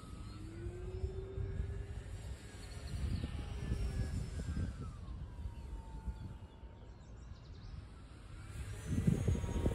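Electric E-flite Air Tractor RC model airplane flying overhead: its motor and propeller give a faint whine that slides up and down in pitch as the plane moves about the sky. Wind buffets the microphone throughout, heaviest near the end.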